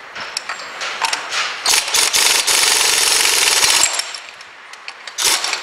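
Pneumatic impact wrench hammering on a front hub centre nut: a few short bursts, then a steady rattle for about two seconds, and one more short burst near the end as the nut comes undone.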